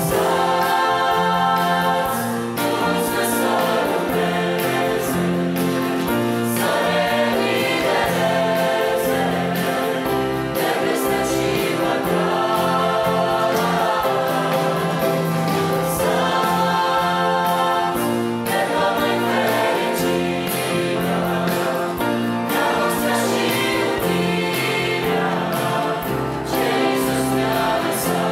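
Mixed youth choir singing a Romanian Christian song in harmony, accompanied by a church band with piano, drums and guitars.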